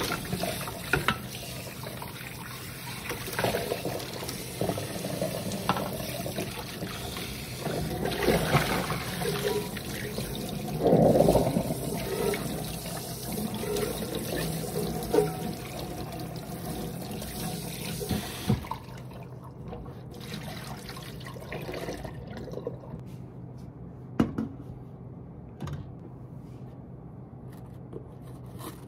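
Water running steadily for about eighteen seconds, then cut off suddenly, followed by a few sharp clicks and knocks.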